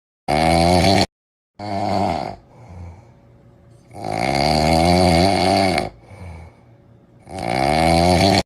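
A sleeping dog snoring: four loud, pitched snores, the longest about two seconds, with quieter breaths between them. The first snore cuts off abruptly.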